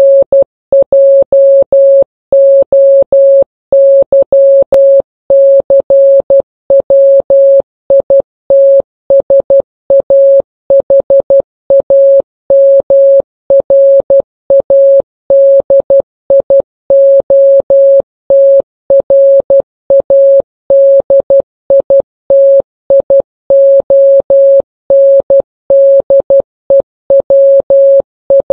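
Morse code (CW) practice tone: a single steady pitch keyed on and off in short dots and longer dashes, sending code at an even pace.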